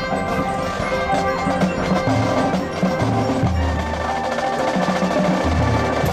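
Marching band playing, percussion prominent, with long low held notes coming in about halfway through.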